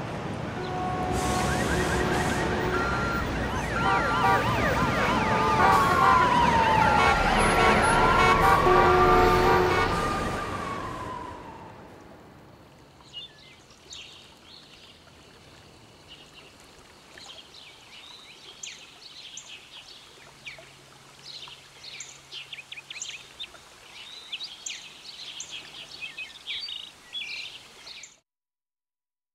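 City traffic noise with car horns honking and a siren wailing down and back up, growing louder to about ten seconds in and then fading away. Quieter high chirping of birds follows, and the sound cuts off about a second before the end.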